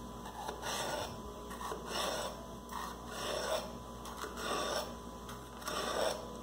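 Kitchen knife slicing a yellow bell pepper on a wooden cutting board: a slow series of cuts, about one a second, each a short scrape of the blade through the pepper against the wood.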